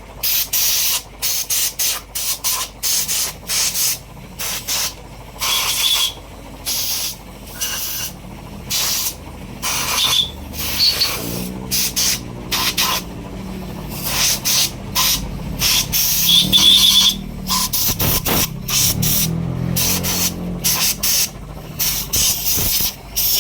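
Repeated hand scraping or rubbing strokes on engine metal during a diesel engine teardown, about two strokes a second in an uneven rhythm.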